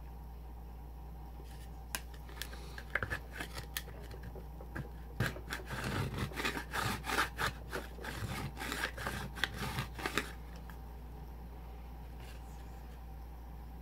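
Plastic spatulas scraping and chopping a frozen mozzarella ice cream mixture on the chilled metal plate of a rolled-ice-cream pan: a run of quick scrapes and taps starting about two seconds in, busiest in the middle and stopping about ten seconds in. A steady low hum runs underneath.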